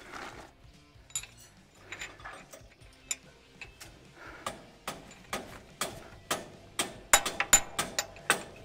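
Hammer tapping a steel punch to drive a new row-unit pivot pin through its mount on a John Deere 1895 air drill: a run of sharp metal clicks, sparse and faint at first, then faster and louder in the second half. The pin is binding because the row is not lined up.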